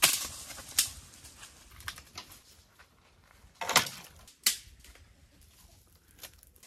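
Chopping dry branches into firewood with a blade: about five sharp strikes at uneven intervals, the loudest right at the start.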